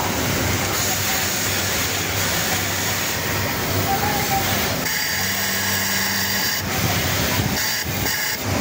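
Siruba industrial overlock machine stitching at high speed in short runs, with brief pauses, over a steady machine hum and hiss.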